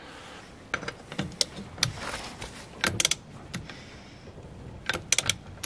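Click-type torque wrench set to 215 Nm working a steel wheel's lug nut: short sharp metallic clicks, scattered and often in quick twos and threes.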